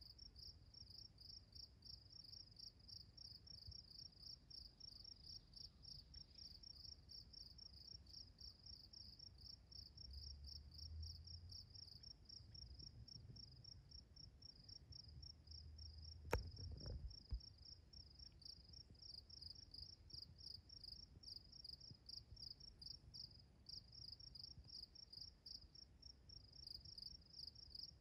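An insect chirping faintly in steady, rapid, even pulses, a high-pitched trill typical of a cricket or katydid. A little past halfway there is a single sharp click with a short low rumble, the loudest moment.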